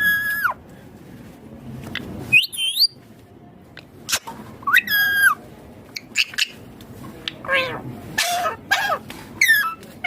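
Indian ringneck parakeet giving short, high-pitched calls, about one every two seconds, then a quicker run of calls over the last few seconds.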